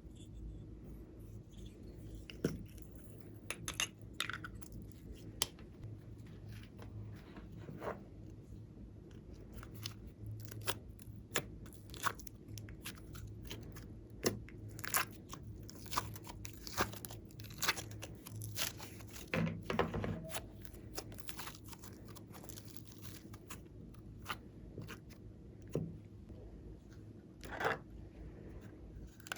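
Slime being squeezed and mixed by hand: irregular small crackles, pops and squelchy clicks, with a few louder ones scattered through.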